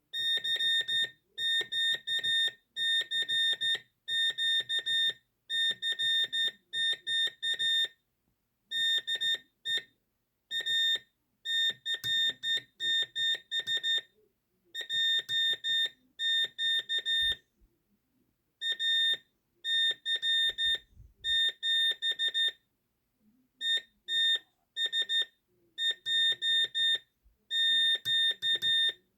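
Morse code sent on a hand key, heard as a high, buzzy beep keyed into short and long elements, with short pauses between the groups. It is a CQ call, the general call inviting any station to answer, sent by hand at practice speed and a little rough.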